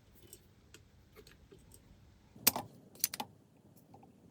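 Small hard objects being handled, clinking and rattling: a few faint clicks, then two louder clattering rattles about two and a half and three seconds in.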